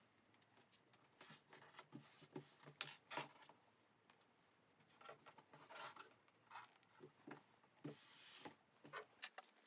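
Faint rustling of fabric being handled, smoothed and pinned together, with scattered soft clicks and taps; the sharpest click comes about three seconds in and a longer rustle near the end.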